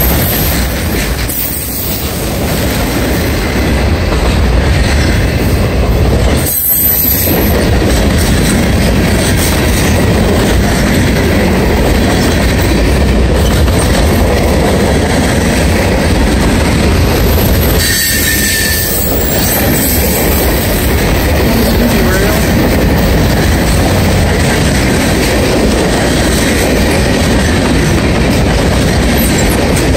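Freight cars of a mixed manifest train rolling past close by: a loud, steady rumble and clatter of steel wheels on rail, with a brief high wheel squeal about eighteen seconds in.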